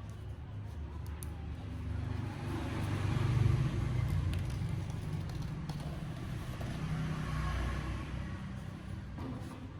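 Low, steady rumbling noise that swells a few seconds in, with a few faint clicks.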